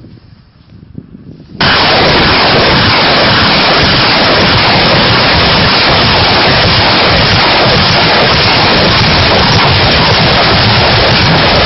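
BM-21 Grad multiple rocket launcher firing a salvo. It starts suddenly about a second and a half in, then holds as one continuous, very loud rushing noise of rockets leaving the launch tubes.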